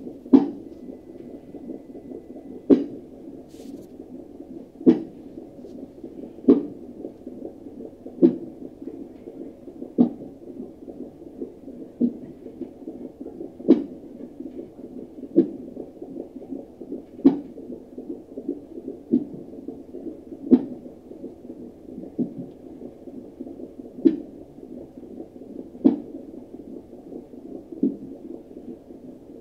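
A baby hiccuping: short, sharp hics at a fairly even pace, about one every two seconds, over a steady low whooshing background.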